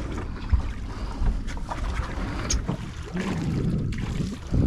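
Wind rumbling on the microphone over water washing against a small fishing boat's hull, with a few light knocks.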